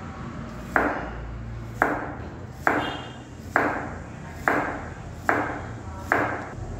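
Kitchen knife slicing a white radish into rounds on a plastic cutting board: seven steady strokes about a second apart, each a sharp knock of the blade through the radish onto the board.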